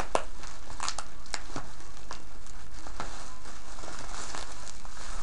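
Clear plastic packaging crinkling and crackling as it is handled and pulled open by hand, in irregular sharp crackles that are densest in the first second and a half.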